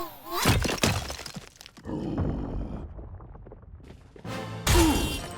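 Cartoon soundtrack music with crashing sound effects: a loud crash about half a second in and another loud hit near the end.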